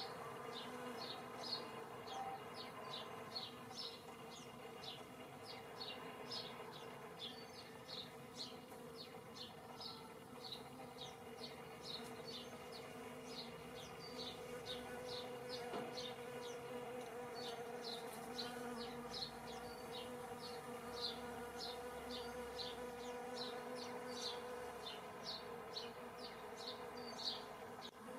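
Honeybees buzzing at flowers: a steady low hum, with a short high chirp repeating about three times a second over it.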